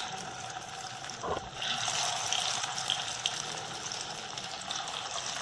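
Bread kabab patties sizzling in hot oil in a shallow pan. The sizzling grows louder about a second and a half in as a second patty goes into the oil, just after a light tap.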